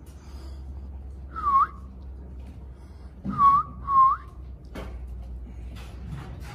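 Three short whistled notes, each dipping and then rising in pitch, the first alone and the last two in quick succession.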